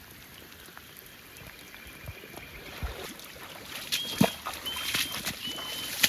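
Swamp water sloshing and splashing, with knocks, as someone moves about in it, the splashing busier in the second half and a single louder thump a little past the middle. Four short, steady high tones sound about 0.7 s apart near the end.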